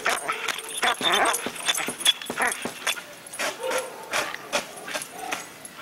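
A dog tearing at a couch's upholstery and stuffing: a quick run of sharp ripping and snapping noises, with a few short cries from the dog mixed in.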